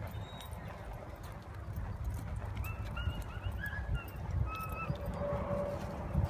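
A horse's hoofbeats thudding on soft, worked arena dirt as it lopes the barrel pattern.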